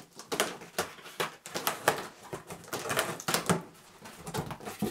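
Packing tape on a cardboard box being slit open, then the cardboard flaps pulled apart: a quick, irregular run of dry clicks, crackles and rustles.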